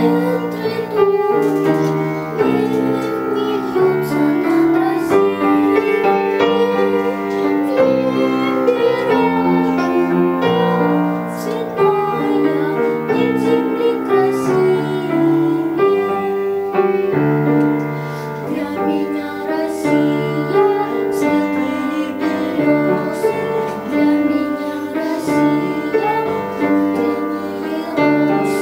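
A young girl singing a solo song, accompanied on grand piano.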